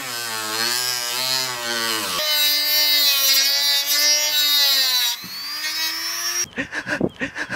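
Corded rotary tool with a cut-off wheel whining as it cuts into a Miata's rear bumper trim panel, its pitch wavering and dipping under load, then running at a steadier, higher pitch. Near the end it gives way to choppy bursts of laughter.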